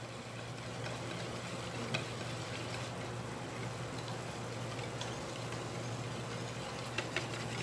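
Wire whisk mixing cream and water in a bowl: faint, even swishing with a light tick of the wires against the bowl now and then, over a low steady hum.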